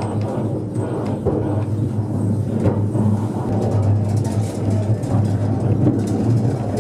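Funicular car running down its steep track: a steady low hum with an uneven rolling rumble.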